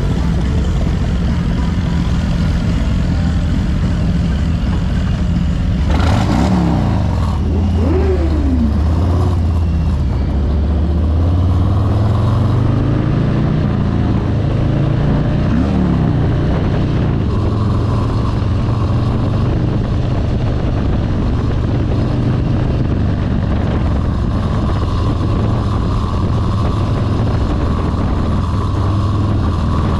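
Motorcycle engine running as the bike rides, its pitch climbing as it speeds up about ten to fourteen seconds in, then holding steady. Brief revs rise and fall around six to nine seconds in and again near sixteen seconds.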